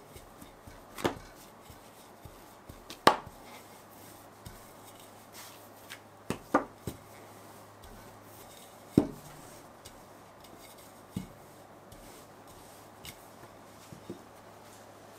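A kitchen utensil knocking on a cutting board during food preparation: separate knocks one to three seconds apart, not a steady chopping rhythm, including a quick double knock about halfway through.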